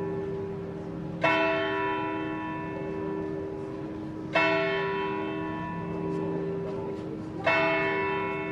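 A large church bell tolling slowly: three strikes about three seconds apart, each ringing on and dying away before the next.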